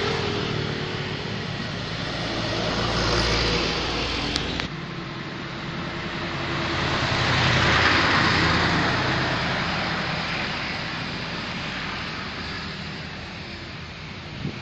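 Traffic on the adjacent road: one vehicle swells and fades in the first few seconds, then after an abrupt break another vehicle passes, loudest about eight seconds in.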